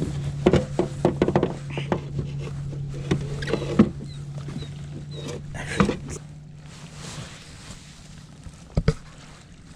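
Clicks and knocks of a caught bass and gear being handled aboard a plastic fishing kayak, over a steady low hum that stops about six seconds in. A couple more knocks come near the end.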